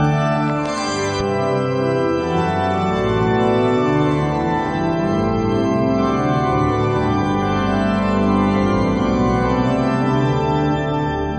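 Organ music of slow, sustained chords, each held for a second or more before moving to the next.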